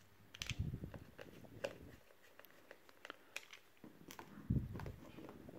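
Faint scattered clicks and taps of small handling noise, with a soft low thump about half a second in and another about four and a half seconds in.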